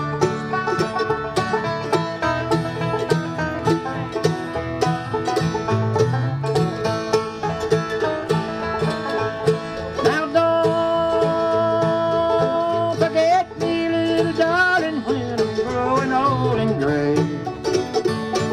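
A bluegrass string band playing: five-string banjo over upright bass, mandolin and acoustic guitar. About ten seconds in a long held note comes in over the picking.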